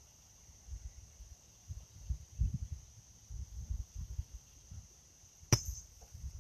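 Outdoor ambience: irregular low gusts of wind buffeting the microphone under a steady faint high insect drone, with one sharp click about five and a half seconds in.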